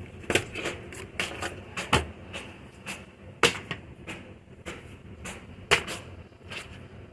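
Kitchen handling noises: about fifteen irregular sharp clicks and knocks from a pan and utensils being moved about, the loudest two near the middle and toward the end.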